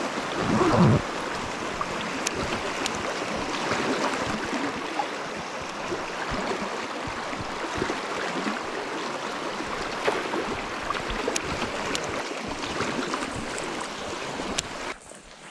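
A shallow river running over riffles: a steady rush of flowing water, with a brief louder swell about a second in. The rush drops away sharply near the end.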